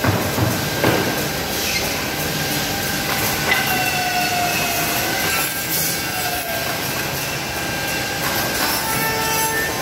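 SEMAC SM-200-4CNC double-end CNC tenon milling machine running, its cutter spindles whining at several steady pitches as the two heads mill tenons on wooden pieces. A few sharp knocks in the first second.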